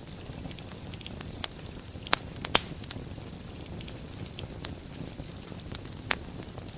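Wood fire burning in a fireplace: a steady low rumble and hiss of the flames with scattered crackles, and a few sharper pops, the loudest about two seconds in, again half a second later, and near the end.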